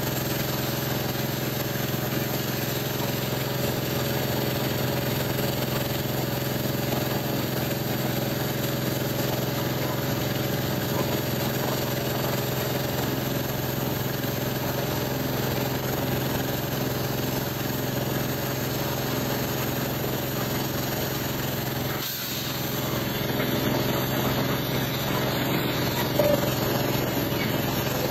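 Pressure washer running steadily: the machine's motor and pump hum under the hiss of the high-pressure water jet spraying against the metal tank end. The sound dips briefly about 22 seconds in.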